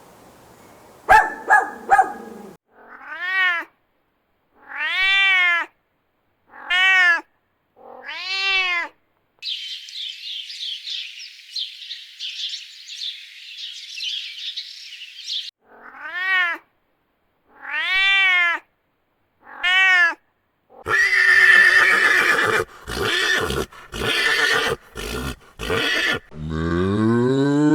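Domestic cat meowing: a run of separate short meows, each rising and falling in pitch. A stretch of high chirping comes between them, and louder, rougher cries follow near the end.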